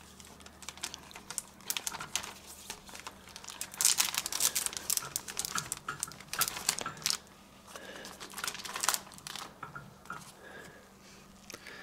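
Plastic comic-book bags crinkling and rustling in irregular spells, with small crackly clicks, as bagged comics are handled and shifted in a wire spinner rack.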